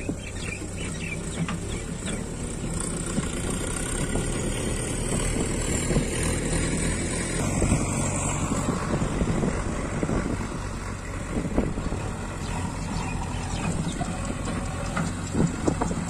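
JCB backhoe loader's diesel engine running steadily as the machine moves over loose soil. The engine note shifts a little about halfway through, with a few short knocks.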